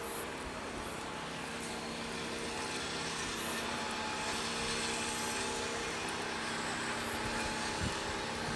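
Steady engine drone holding a few even tones over a noisy rush, with a short low thump near the end.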